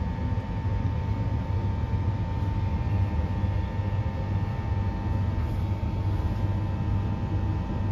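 Running noise inside a Queensland Rail NGR electric multiple unit carriage travelling at speed: a steady low rumble with a constant high-pitched hum over it.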